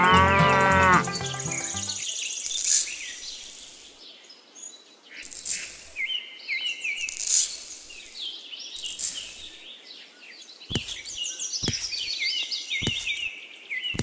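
A cow mooing once in the first two seconds, then birds chirping over sand being poured into a tray in several hissing swishes, with three light knocks near the end.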